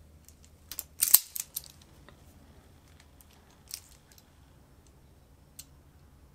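Self-adjusting wire stripper clamping and snapping shut as it strips insulation off thin sensor wires: a quick cluster of sharp clicks about a second in, then a few single clicks later on.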